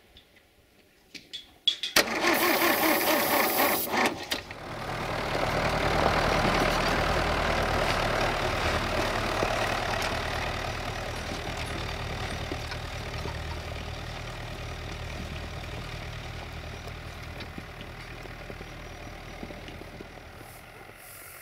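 Diesel engine running steadily while a tractor tows a cold ARO 244D through snow to start it, the engine sound slowly fading. It is preceded by a loud, harsh noise lasting about two seconds, starting about two seconds in.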